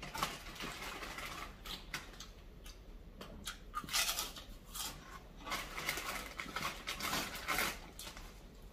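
Close-up eating sounds of a person eating bakso meatball soup: chewing and wet mouth noises in short, irregular bursts, with small clicks between them.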